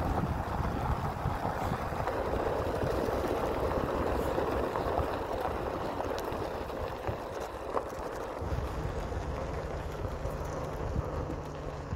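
A vehicle rolling slowly along a gravel driveway, its tyres crunching on the gravel over a low engine rumble. About two-thirds of the way in, the crunching eases and a steadier low hum takes over.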